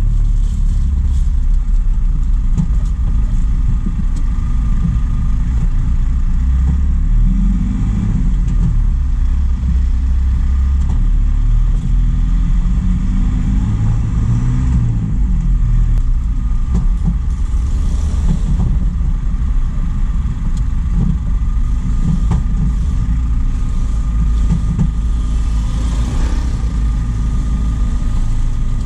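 Truck driving on the road: a steady engine drone with road noise, the engine note rising and falling a few times.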